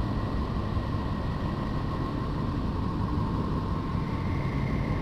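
Neptune's radio emissions converted into sound: a steady, unsettling low rushing noise with two faint held tones above it, like a never-ending storm.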